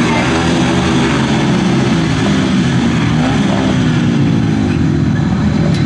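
Several speedway solo bikes' 500cc single-cylinder methanol engines running together at the start tapes, their pitches rising and falling as the riders blip the throttles.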